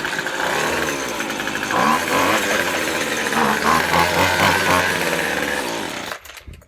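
Gas string trimmer's two-stroke engine running after being pull-started, then cutting off suddenly about six seconds in.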